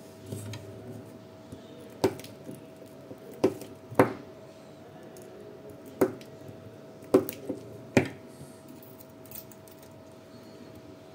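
Battery spot welder firing short pulses to weld nickel strips onto NiCd cells of a drill battery pack: about seven sharp snaps at uneven intervals, the loudest about four seconds in.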